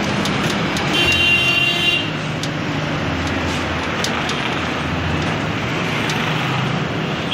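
Busy city road traffic heard from the open window of a moving vehicle: steady engine rumble and tyre noise, with a short horn toot about a second in.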